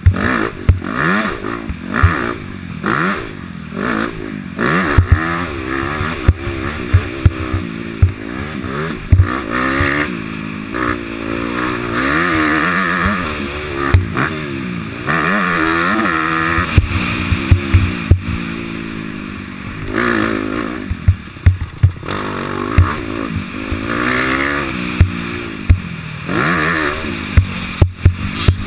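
Honda CRF250 four-stroke single-cylinder motocross bike ridden hard on a dirt track, its engine revving up and dropping back again and again as it runs through the gears, with frequent sharp knocks as it goes over the bumps.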